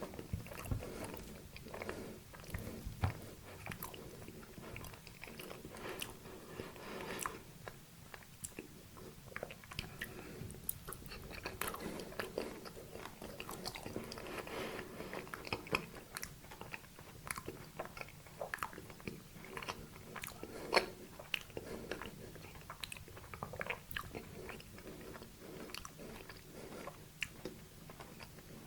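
Close-miked eating of a sweet dessert: biting and chewing with many small, irregular crisp clicks and crunches, one sharper than the rest about three quarters of the way through.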